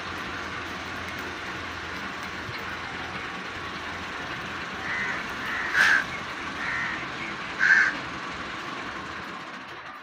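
Indian ringneck parakeet giving four short, harsh calls over a steady background hiss, the two loudest just before six seconds in and near eight seconds in.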